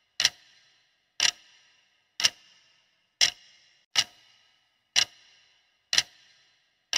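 Clock-tick sound effect counting down a quiz answer timer: sharp ticks about once a second, each with a brief ringing tail.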